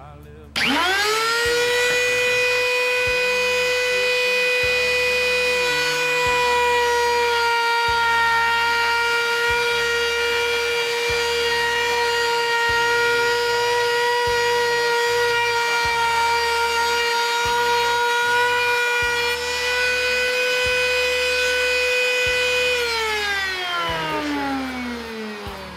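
Table-mounted electric router switched on: the motor spins up within a fraction of a second to a loud, steady high-pitched whine. It runs for about twenty seconds, is switched off near the end, and winds down in falling pitch.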